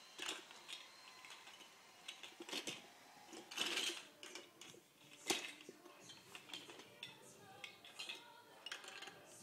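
Plastic Duplo bricks clacking and knocking together as they are handled and stacked: a series of irregular clicks, the sharpest about five seconds in.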